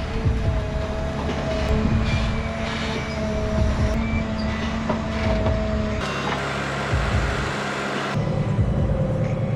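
Heavy machine engine running steadily with a low rumble. The sound changes abruptly about six seconds in and again about two seconds later.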